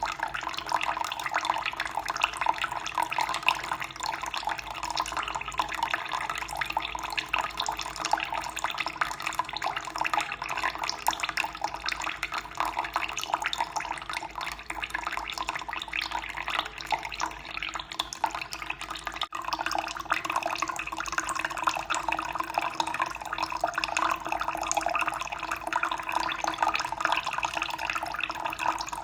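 Running water flowing and splashing steadily. Its sound shifts slightly about two-thirds of the way through.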